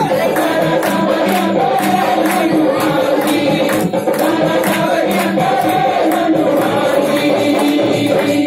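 Hindi devotional song to Krishna (bhajan): sung melody over a steady jingling percussion beat.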